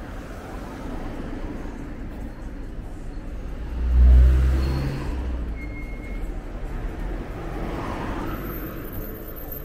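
A car going past close by on a street: a low engine rumble swells sharply about four seconds in, then a wider rushing tyre-and-engine sound rises near the end as a car moves past.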